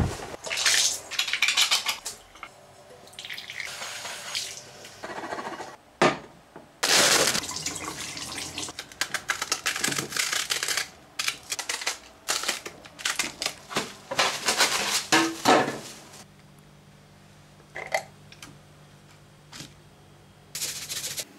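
Kitchen food-preparation sounds: crisp endive leaves being broken off and handled over a plate, and an endive salad being stirred, in many irregular rustling strokes. A steady low hum comes in during the last few seconds.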